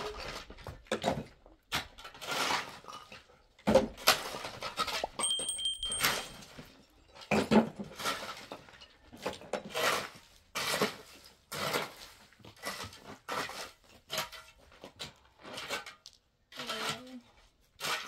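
Irregular clattering, knocking and scraping of objects being handled, some strokes sharp and some drawn out, with a brief thin high tone about five seconds in.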